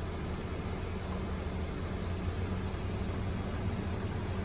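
Steady low rumble of an approaching diesel push-pull commuter train.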